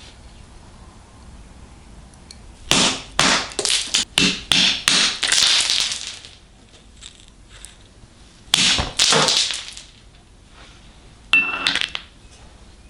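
A run of sharp knocks and clinks, hard objects striking, in three bunches, the last with a brief high ring.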